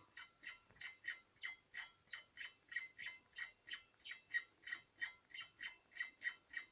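Rear universal-joint cross of a Lada Niva 2131 driveshaft squeaking under load: short, even squeaks, about three a second. The cross is worn and needs replacing.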